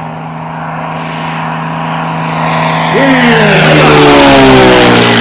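Aerobatic plane's piston engine and propeller making a low pass overhead: a steady drone that grows louder, then from about three seconds in its pitch drops as the plane passes.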